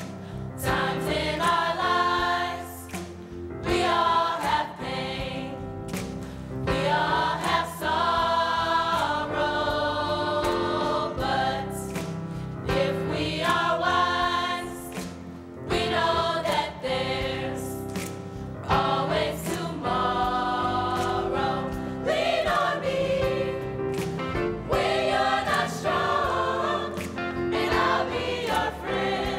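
A high school choir singing a song in parts, with short breaks between phrases.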